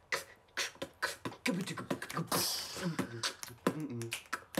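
Beatboxing: quick mouth-made kicks and clicks with a hissing snare sound, and low hummed notes joining about a second and a half in.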